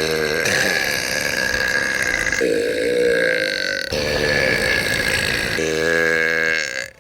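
Several long, loud human burps, one after another with no gap between them. Each is a drawn-out, pitched belch lasting one to two seconds. The sound switches abruptly from one burp to the next and cuts off sharply near the end.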